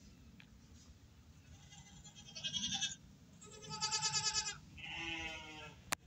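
Goats bleating: three wavering, trembling bleats in quick succession starting about two seconds in, the middle one longest and loudest. A sharp click follows near the end.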